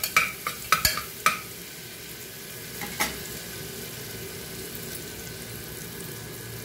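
Ginger-garlic paste sizzling as it fries in ghee in a pressure cooker, being cooked until its raw smell is gone. A spoon scrapes and taps against the pot several times in the first second or so and once about three seconds in, and then the steady sizzle carries on alone.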